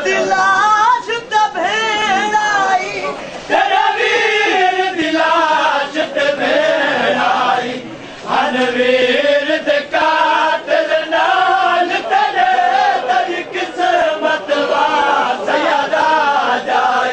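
Men chanting a Punjabi noha, a Shia lament for the dead, loud and continuous, with many voices of the crowd of mourners joining in.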